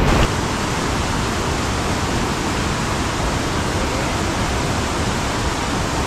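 Fast, swollen river rushing over rocks: a steady, even rush of white water.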